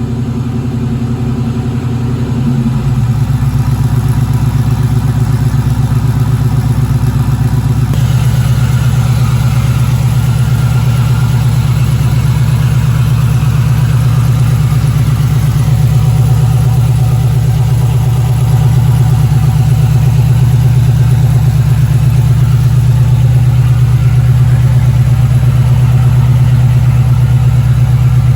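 LS V8 engine running through a 3-inch Hooker BlackHeart header-back exhaust with long-tube headers: a steady, low pulsing exhaust note that gets a little louder about two and a half seconds in.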